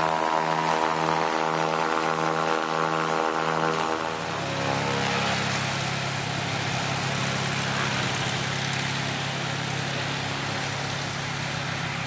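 An engine running steadily with an even, pulsing drone. About four seconds in, the sound changes abruptly to a noisier, rougher engine noise over a low hum.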